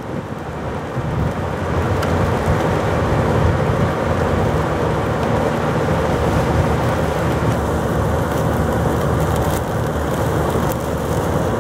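Strong thunderstorm wind and driving rain, the wind buffeting the microphone in a loud, unbroken rush of noise heaviest at the low end.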